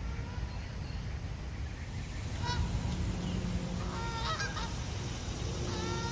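Canada geese honking: one honk about two and a half seconds in, a quick run of several honks around four seconds, and more near the end, over a steady low rumble.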